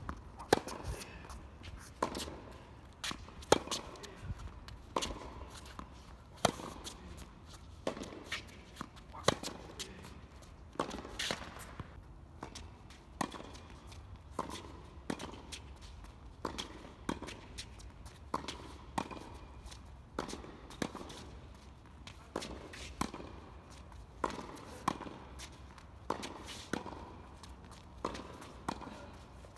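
Tennis rally on a hard court: the sharp pop of racket strings striking the ball alternates with the ball bouncing on the court, a hit or bounce about every second, some hits much louder than others.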